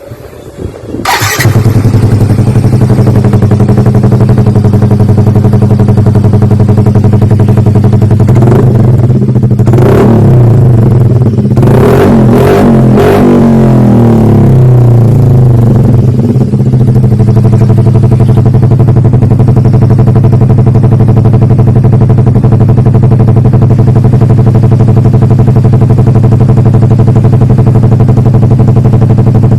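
Yamaha Mio i125 scooter's stock single-cylinder engine through a Kou Mahachai Bluemoon aftermarket exhaust: it starts about a second in and idles loudly. Between about 8 and 16 seconds it is blipped in several quick revs, then settles back to a steady idle.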